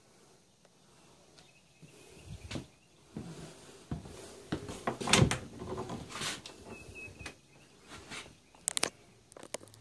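Wooden cupboard door being handled and opened: a series of knocks and clicks from the door, its metal knob and latch. The loudest knock comes about halfway through, and a quick run of sharp clicks comes near the end.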